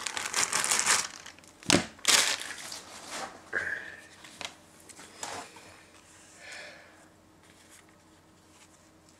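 Plastic packaging bag crinkling and rustling as an accessory is pulled out and unwrapped, with a knock about two seconds in. The rustling thins out and stops over the last couple of seconds.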